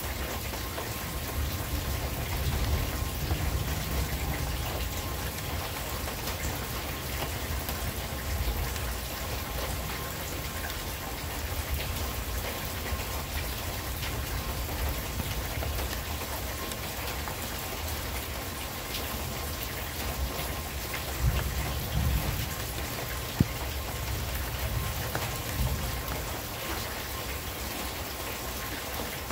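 Steady rain falling in a thunderstorm, with low rumbles of thunder in the first several seconds and again about 21 seconds in, and one sharp click a couple of seconds later.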